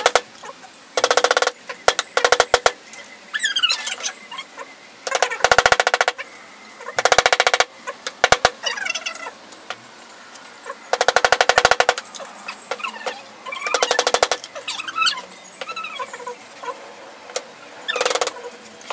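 A screw-driving tool working screws into wood in repeated short bursts of rapid, even clicking, each about half a second to a second long, with pauses of one to four seconds between them.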